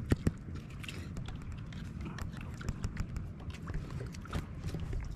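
Water lapping and sloshing against a small boat's hull at sea, a steady low wash with many small scattered clicks and two sharper knocks at the very start.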